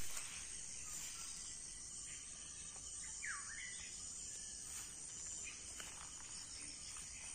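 Steady high-pitched chorus of insects such as crickets, with one short bird chirp about three seconds in.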